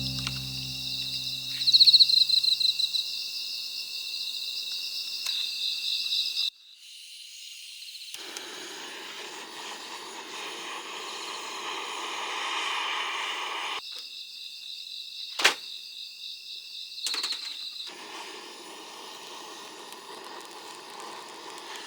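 Night insects, crickets, chirping in a steady high pulsing drone. For several seconds in the middle the chirping gives way to an even hissing noise, and a single sharp click comes later.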